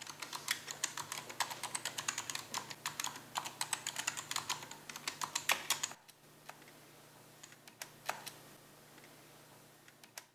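Typing on a computer keyboard: a fast run of key clicks that thins about six seconds in to a few scattered keystrokes, over a low steady hum.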